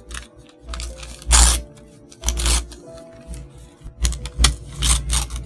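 Thin paper from a tear-off calendar page being torn and crinkled by hand, in a string of short rasping bursts, the loudest about a second and a half in. Piano music plays underneath.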